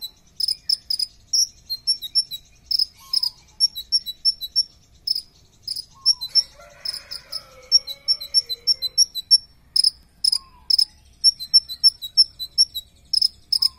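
Caged kolibri ninja (purple-throated sunbird) singing: a long string of rapid, high-pitched chirps, several a second. A lower warbling phrase joins in from about six to nine seconds.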